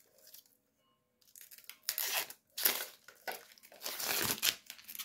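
Plastic wrapping crinkling and rustling in a series of irregular bursts, starting about a second in, as it is handled and pulled off a USB hard-drive dock.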